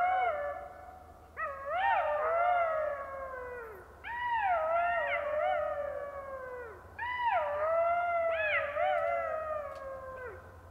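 Golden jackals howling in chorus: several voices in overlapping, wavering wails that rise and fall. They come in three bouts about three seconds apart, each trailing off on a falling note.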